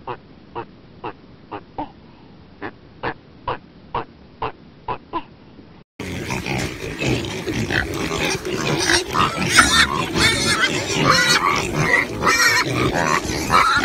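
A series of short clicks, about two a second, then about six seconds in a sudden change to a herd of pigs grunting and squealing together.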